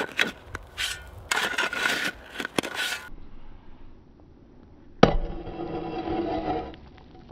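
Hand-forged steel pickaxe digging into dry, stony soil: a run of scraping, crunching strokes as dirt and stones are loosened, then, after a short pause, one sharp strike about five seconds in, followed by a ringing tone lasting over a second.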